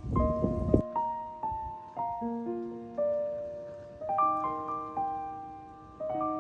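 Background music: a solo piano playing slow, gentle single notes that strike and fade. Less than a second in, a louder rough noise underneath the piano cuts off abruptly.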